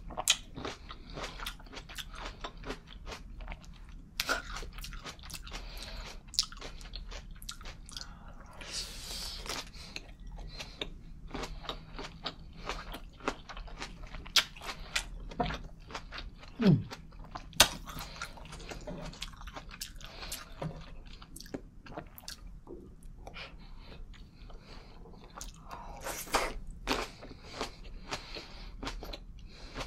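A person chewing close to a lavalier microphone: wet mouth clicks and smacks with crunchy bites, while eating cured parma ham and green grapes.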